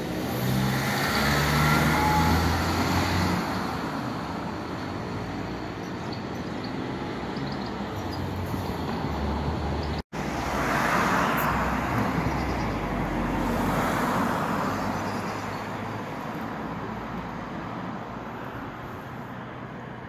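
Cars passing along the street, the traffic noise swelling and fading twice: once in the first few seconds and again just after a brief break about halfway.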